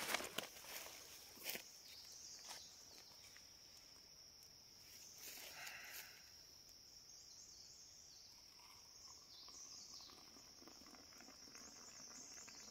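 Faint, steady, high-pitched insect drone, with a few light clicks and knocks in the first couple of seconds.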